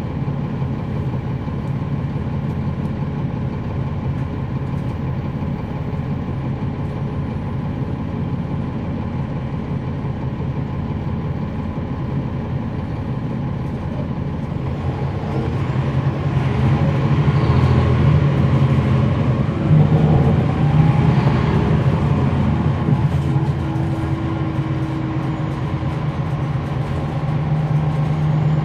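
Cummins ISL9 inline-six diesel engine of a 2012 NABI 40-SFW transit bus, heard on board: running steadily at first, then getting louder as the bus pulls away about halfway through, its pitch climbing twice. A steady whine joins in near the end.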